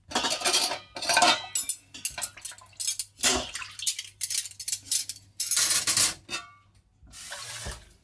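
Dishes, cutlery and a stainless-steel pot clattering and scraping in a sink as they are rinsed and handled. It is a run of separate clinks and knocks, with a short metallic ring about six seconds in.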